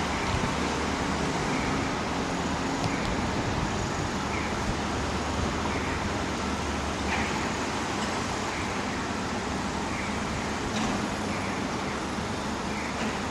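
Steady city road traffic: cars, taxis and trucks running along a busy multi-lane street, with faint short chirps repeating about every second and a half.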